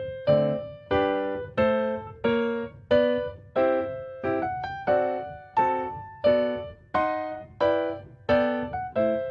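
Background music: piano-like keyboard chords struck in a steady rhythm, each one ringing out and fading before the next.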